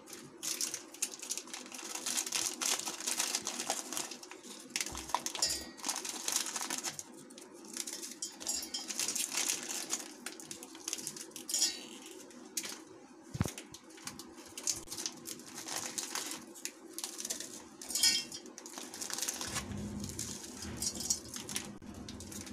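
Crisp biscuit-cream biscuits being snapped and crumbled by hand into a stainless-steel mixer jar: irregular sharp cracks and small pieces clattering against the steel, mixed with crinkling of the plastic biscuit wrappers as packets are torn open.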